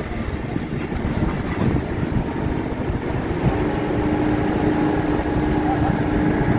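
2021 Bobcat telescopic handler running with a steady engine rumble. A steady whine joins about halfway through as the boom swings its empty forks back from the upper floor.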